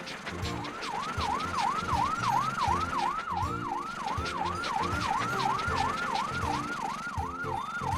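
Cartoon fire truck siren wailing in a fast, even rise and fall, about two and a half sweeps a second, starting about half a second in.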